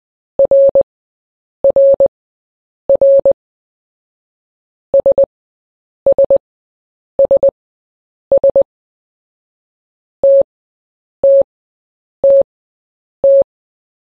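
Morse code tone beeps at a steady pitch of about 550–600 Hz. The letter R (dit-dah-dit) repeats, then S (three quick dits) four times, then T (a single dah) four times, with pauses of about a second between repeats.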